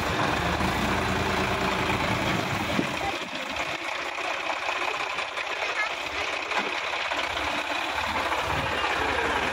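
Sonalika DI-50 RX tractor's diesel engine running under load as it drives through deep mud. Its low engine note drops away for a few seconds in the middle and comes back near the end.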